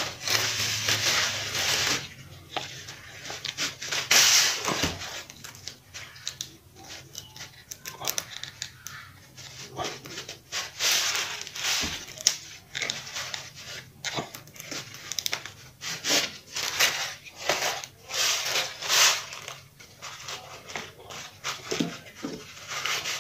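Handling noise from a silicone mold being pried apart and peeled off a cured epoxy casting: crinkling plastic sheeting and rubbing, tearing silicone in irregular scratchy bursts.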